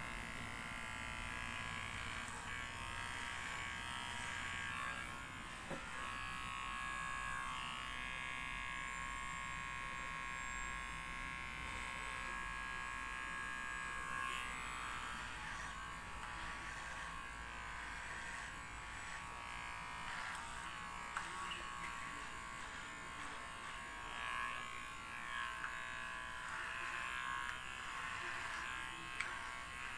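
Cordless electric hair clipper buzzing steadily as it shaves a head down to the scalp, with a few light clicks.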